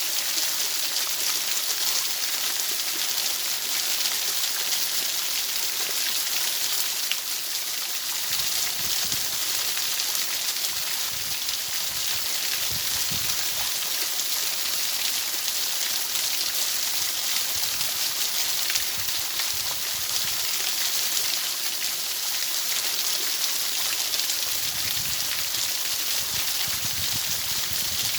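Rain falling steadily: a bright, even hiss, with faint low rumbles coming and going from about eight seconds in.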